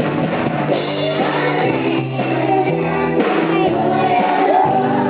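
Live praise-band music: a group of children singing together over keyboard, electric guitar and drums.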